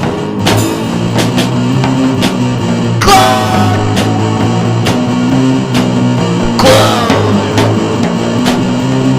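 Instrumental passage of a rock song: guitar and bass over a steady drum beat, with a sliding high note about three seconds in and again near seven seconds.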